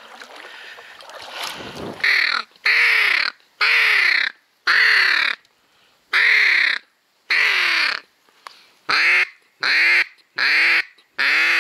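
Duck quacking close by: about ten loud, drawn-out quacks, each falling in pitch. They start about two seconds in and repeat roughly once a second, coming a little faster near the end.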